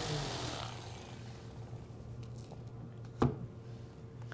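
Random-orbit sander switched off and winding down, its pitch falling and fading within the first second. A faint steady hum follows, with a single knock about three seconds in as the sander is set down on the bench.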